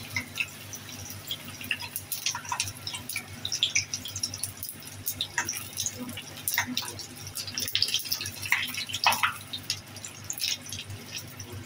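Samosas deep-frying in hot oil in a small pan: a continuous sizzle full of quick crackles and pops.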